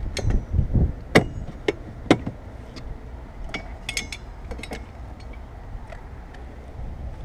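Hand tools and loose metal parts knocking and clinking during hands-on work on a car's cowl and wiper area: a handful of sharp knocks and clinks, some with a short metallic ring, the loudest in the first two seconds and a quick cluster about four seconds in.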